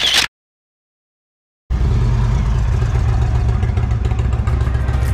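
Indian Chieftain's Thunderstroke 116 V-twin running steadily through its twin exhausts, coming in after a short burst of noise and about a second and a half of silence.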